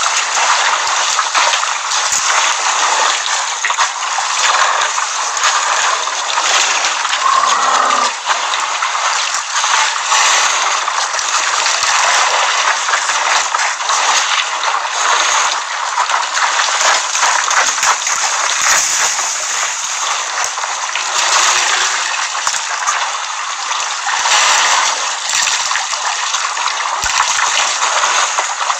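Continuous water splashing and sloshing as a herd of elephants wades and drinks in a waterhole, with a brief pitched sound about seven seconds in.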